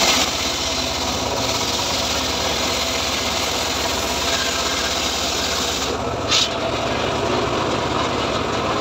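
Homemade engine-driven circular-saw sawmill (gergaji srekel) running steadily as a teak log is fed through its blade, with a dense rasping whine; a brief, sharper high-pitched burst about six seconds in.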